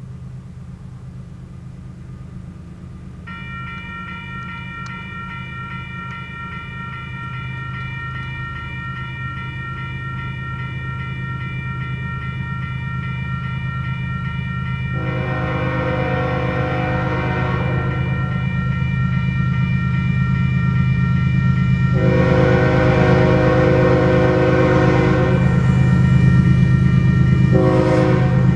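A level-crossing warning bell starts ringing about three seconds in and keeps on. Then a diesel freight locomotive's air horn blows the crossing signal, two long blasts and a short one, over a low rumble that grows steadily louder as the train approaches.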